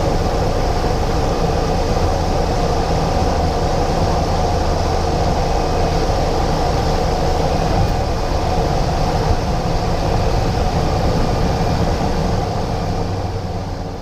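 Cessna 208 Caravan's turboprop and propeller heard from inside the cockpit in cruise: a steady loud drone with a constant low hum, fading out over the last couple of seconds.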